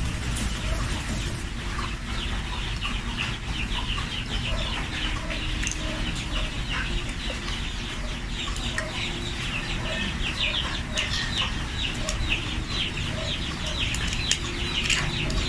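Birds calling: a rapid run of short, high, falling chirps, several a second, with softer lower notes in between, over a steady low background rumble. A few sharp clicks near the end.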